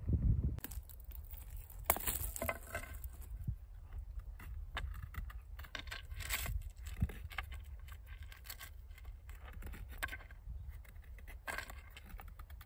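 Irregular rustling, scraping and small clinks, as of gear or clothing being handled close to the microphone, over a steady low rumble.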